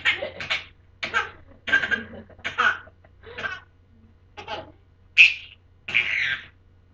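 Baby laughing hard in a string of short bursts, under a second apart.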